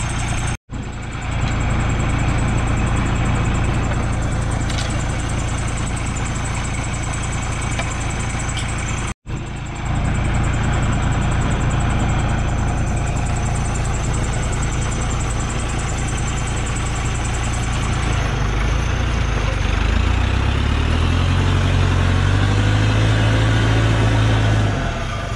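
Engine of a loaded logging truck running steadily with its rear wheels stuck in a dug-out rut, then revving up from about two-thirds of the way in and holding high until near the end. The sound cuts out for an instant twice early on.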